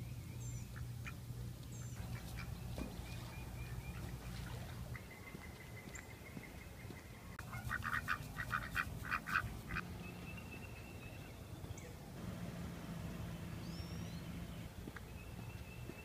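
A duck quacking in a quick run of about eight quacks midway through, with small birds chirping now and then and a steady low hum underneath.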